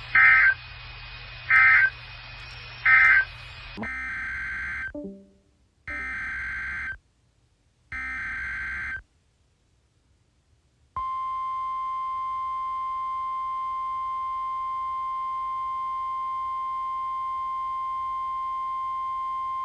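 Emergency Alert System data bursts between two weather-radio alerts. Three short bursts in the first three seconds end one message, then three longer bursts of about a second each begin the next. After a short gap comes a steady, unbroken alarm tone lasting about nine seconds: the weather radio's warning alarm tone.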